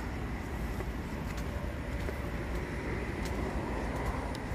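Steady outdoor city noise: road traffic running with a low rumble, and a few faint clicks.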